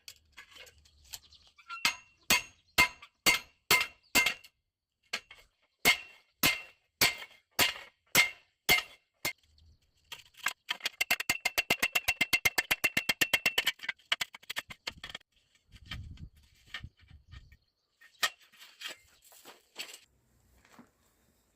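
Hammer blows on steel, ringing, about two a second, then after a short pause a fast run of rapid strikes for several seconds, followed by a few scattered knocks and a dull thud.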